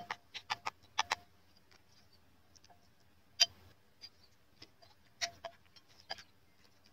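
Metal spoon clicking quickly against a bowl as a marinade is stirred, about five clicks a second for the first second, with a slight ring from the bowl; then a few scattered single clinks as raw chicken wings are turned in the marinade.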